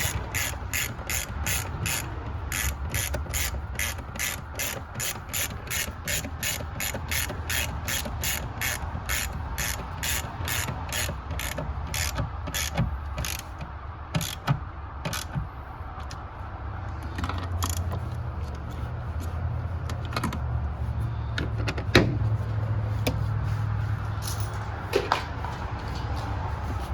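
Socket ratchet wrench clicking fast and evenly, about four clicks a second, as a bolt is turned; after about twelve seconds the clicks become scattered. A single sharp knock comes about 22 seconds in.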